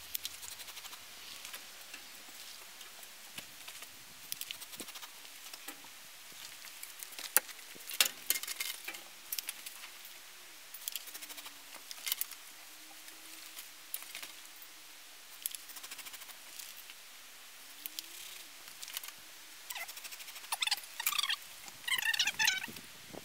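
Mineral wool insulation batts rustling and crackling as they are handled and pressed between timber wall studs, with scattered small clicks and scrapes. A faint wavering hum sits underneath, and near the end comes a quick run of short high chirps.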